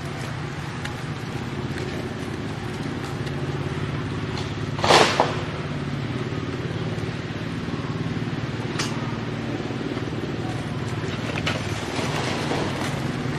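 A steady low motor hum, with a sudden loud, short burst of noise about five seconds in and a smaller one just after it.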